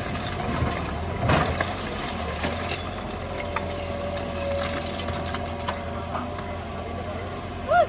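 JCB 3DX backhoe loader's diesel engine running steadily under work, with scattered knocks and a louder clunk about a second in. A steady whine is heard through the middle, and a short pitched squeak comes near the end.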